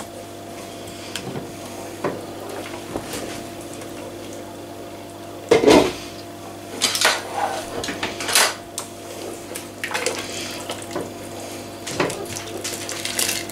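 A glass lid is lifted off a large metal stockpot with a loud clatter about five and a half seconds in. A metal utensil then clinks against the pot several times as the soup is stirred, over a steady low hum.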